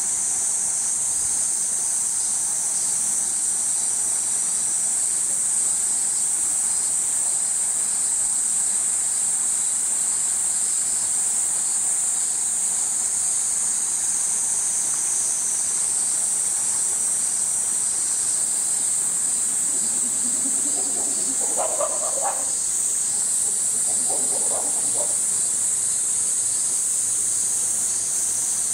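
Chorus of cicadas: a steady high-pitched buzz that shifts slightly in pitch now and then, with two brief faint calls about three quarters of the way through.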